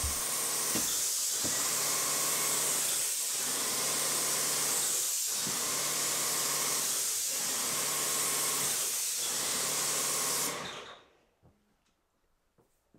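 Airless paint spray gun hissing steadily as it sprays paint onto a wall, over a faint low hum that breaks about every two seconds. The trigger is released and the spray cuts off suddenly about ten and a half seconds in.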